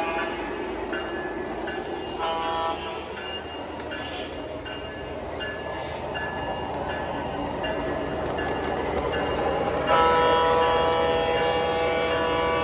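O-gauge model trains running on three-rail track, the wheels rumbling steadily. A locomotive's onboard sound system blows a short horn chord about two seconds in, and a longer, louder horn from about ten seconds in. Short dings repeat about every half-second throughout.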